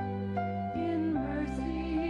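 Slow background music of held chords changing every half second or so, with a melody line that wavers with vibrato coming in about a second in.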